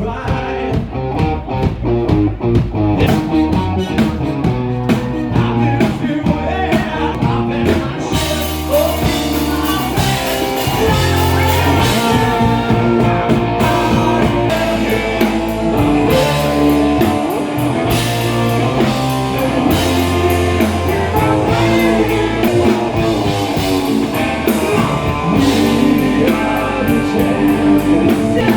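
Live rock band playing a blues-rock song: electric guitar, bass and drum kit with a singing voice, the sound filling out with more cymbal and treble about eight seconds in.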